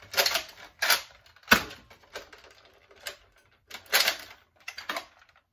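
A modified Nerf Retaliator being primed and fired again and again: a run of sharp plastic clacks and dart shots, spaced about a second apart or less.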